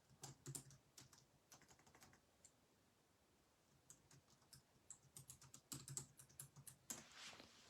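Faint typing on a computer keyboard: irregular clusters of quick key clicks, busiest near the start and again near the end.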